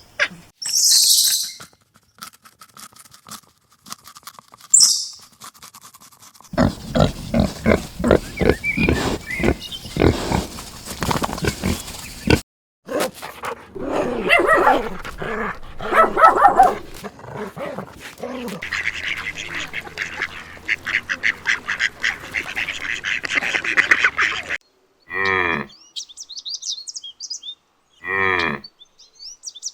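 A run of different animal calls, one short clip after another, each cut off abruptly before the next begins: a couple of brief high calls, a long noisy stretch, a fast rhythmic chattering, and two short pitched cries near the end.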